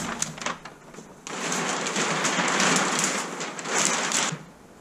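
A new sail's cloth rustling and crinkling as it is pulled out of its shipping box and shaken open, with packing paper. It is fainter for about the first second, then a loud steady rustle that stops shortly before the end.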